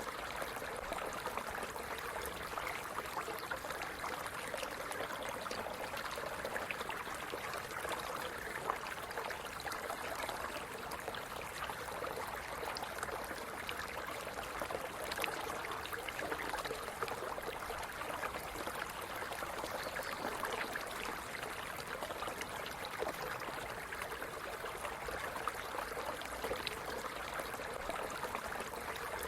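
Stream running steadily over rocks: water babbling and gurgling, full of small splashes and droplet ticks.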